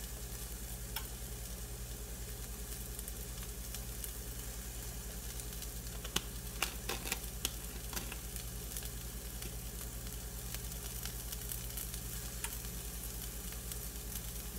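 Cauliflower and vegetables sauteing in a pan, a steady sizzle over a low hum, with a few light clicks as a spice jar is opened and handled.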